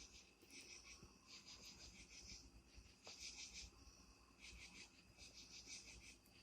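Faint night insects calling: repeated high, rasping bursts of rapid pulses, about one burst a second.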